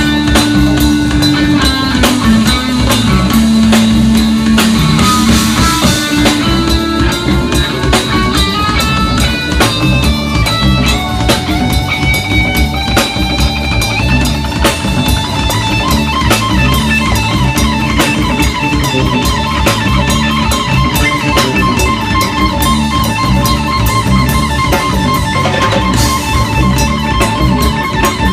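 A live rock band playing an instrumental passage: an electric guitar plays a melodic lead over a drum kit and bass, with long held notes in the first few seconds, then quicker runs of notes.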